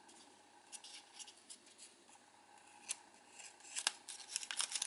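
Origami paper crinkling and rustling under the fingers as it is folded and creased: scattered faint crackles, coming thicker near the end.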